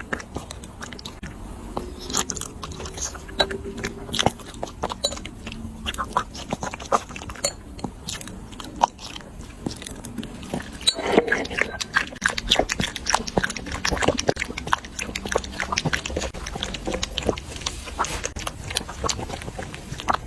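Dogs eating, with a rapid, irregular run of chewing clicks that gets busier about halfway through.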